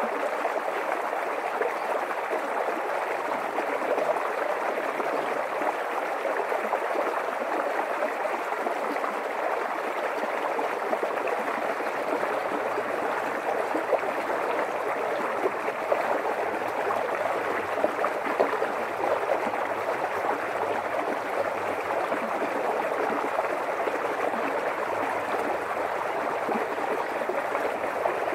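A creek running steadily: an even, unbroken wash of flowing water.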